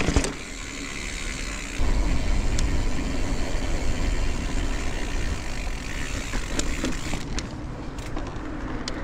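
Mountain bike rolling along a paved path: tyre noise and wind buffeting the action camera's microphone, the deep wind rumble getting louder about two seconds in. A knock at the very start and a few light clicks from the bike.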